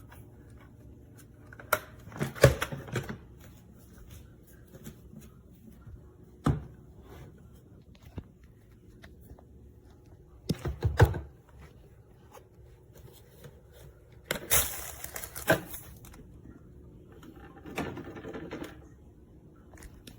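Intermittent clunks, clicks and plastic rattles of things being handled, in five short clusters with quiet between them; the vacuum's motor is not running.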